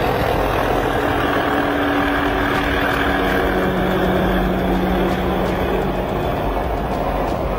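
Heavy vehicle engines running slowly with steady road noise and a low engine hum.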